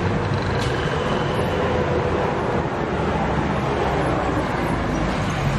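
Steady city street noise with a low traffic rumble.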